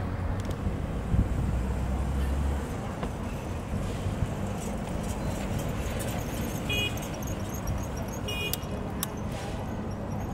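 Street traffic at a city intersection, a steady hum of passing vehicles with a low rumble in the first couple of seconds. Two short high beeps sound about 7 and 8.5 seconds in.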